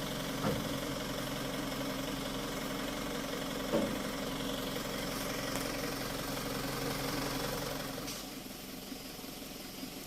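Dump truck engine idling steadily, with two short knocks, the first about half a second in and the second nearly four seconds in. The engine sound drops quieter about eight seconds in.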